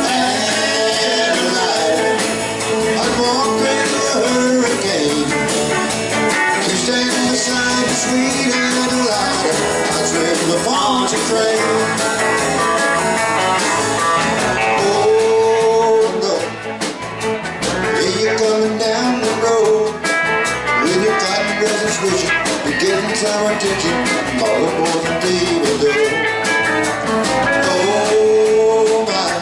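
Live country and rock band playing loud and steady: electric guitars, bass guitar and a drum kit, with a lead melody of bending notes over the rhythm.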